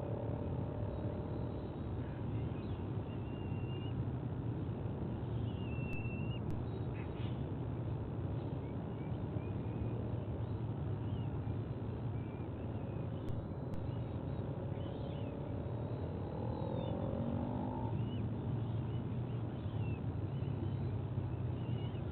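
Steady low rumble of outdoor ambience, with scattered short chirps of small birds and a few drawn-out calls that rise and fall in pitch.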